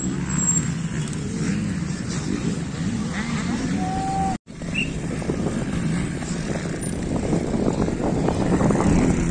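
Trials motorcycle engines running at low revs, the pitch rising and falling with throttle blips as riders pick their way over obstacles. The sound drops out for a moment about four and a half seconds in.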